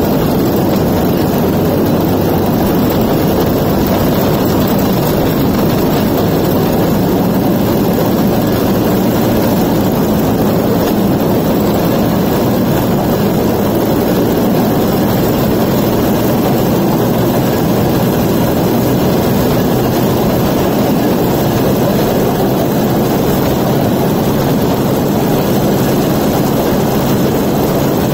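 Homemade rail cart powered by a Suzuki 125cc two-stroke engine, running steadily while travelling along the track, mixed with the rumble of its steel train wheels on the rails.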